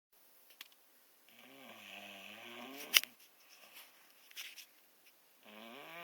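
A sick person snoring: a drawn-out snore with a wavering pitch, cut off by a sharp click about three seconds in, then the next snore beginning near the end.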